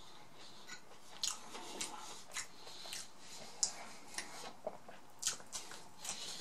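A person chewing french fries dipped in ketchup, with irregular short smacking clicks from the mouth.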